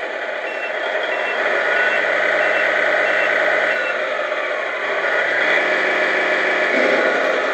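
Tamiya MFC-01 sound unit playing a simulated semi-truck engine through its speaker box. The engine rises and falls in pitch twice as the throttle is worked. For the first few seconds a reversing beeper sounds about twice a second, although the stick is pushed forward: the throttle channel is set the wrong way round and needs reversing.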